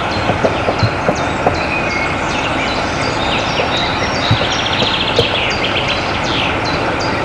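Steady hiss from a standing narrow-gauge steam locomotive. Small birds chirp over it again and again, with a brief trill about two thirds through. A few light knocks come at odd moments.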